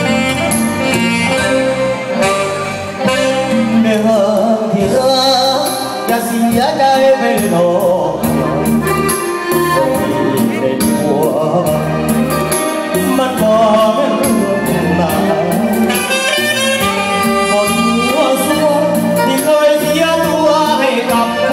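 Loud live band music from a Thai luk thung stage show, heard through the PA system: the band playing the song's introduction before the lead vocal comes in.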